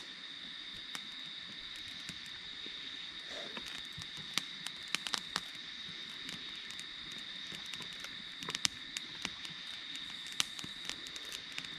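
A steady, high-pitched insect chorus of crickets or katydids, with scattered sharp clicks and snaps over it.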